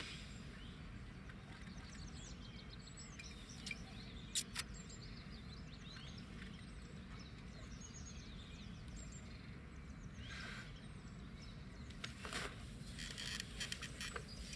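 Outdoor field ambience: small birds chirping over a low, steady background rumble. A few sharp clicks come around four seconds in, and a short patch of rustling and handling noise comes near the end.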